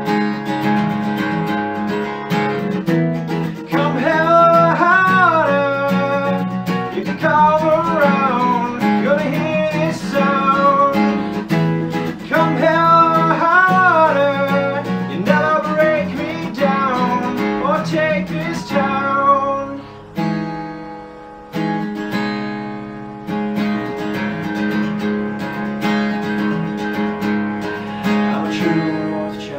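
Background music: a song with strummed acoustic guitar. A wavering melody line rides over the chords for roughly the first two-thirds, then the guitar carries on alone.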